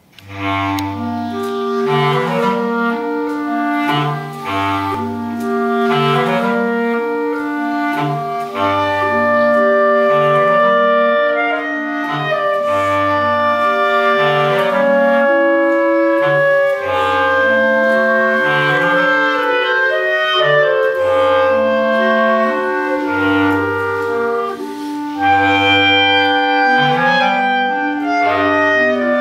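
Clarinet quartet playing, several clarinets in harmony over a bass clarinet whose low notes come back every few seconds. The music starts right at the beginning.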